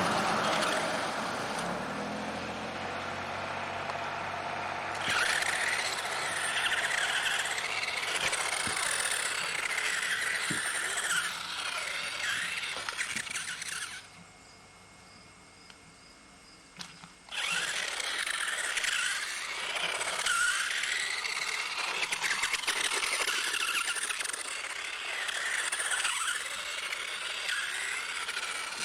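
High-pitched whine of a remote-control toy's small electric motor, its pitch wavering up and down as it speeds and slows. It stops for about three seconds about halfway through, then starts again.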